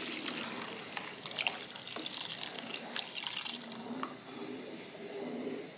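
Water poured from a jug into a stainless steel pan of tomato and guajillo chile sauce, splashing into the sauce, with light knocks of a wooden spoon stirring against the pan. The pouring stops about three and a half seconds in.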